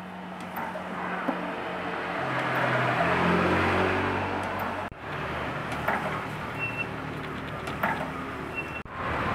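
A motor vehicle passing, its engine growing louder and shifting in pitch to a peak about three or four seconds in before the sound cuts off abruptly. After that comes a steady background hum with a few faint clicks.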